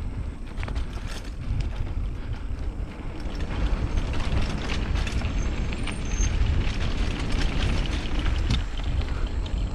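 Mountain bike riding over a dirt trail: tyres rolling, wind buffeting the microphone in a steady low rumble, and scattered knocks and rattles from the bumps.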